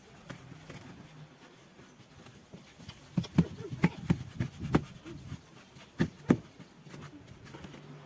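A run of sharp, irregular knocks and taps, about nine in quick succession a few seconds in, then two more a little over a second later, over a quiet background.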